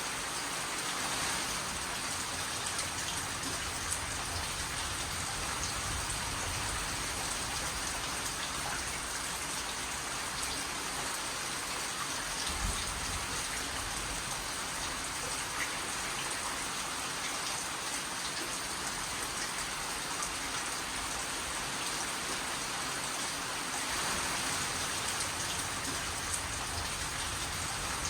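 Steady rain falling on a surface, an even hiss with scattered drop ticks and an occasional faint low thump.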